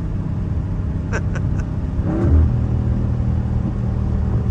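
Dodge Charger Scat Pack's 392 HEMI V8 cruising at highway speed, heard from inside the cabin as a steady low drone mixed with road noise. The engine note swells briefly and grows more distinct about two seconds in.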